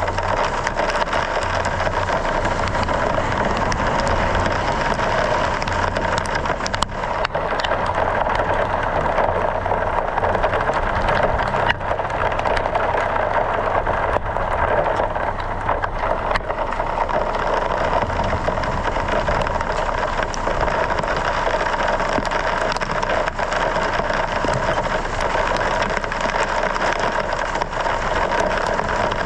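Hailstorm: a dense, steady pelting of hailstones on a vehicle, with many sharp ticks of single stones standing out.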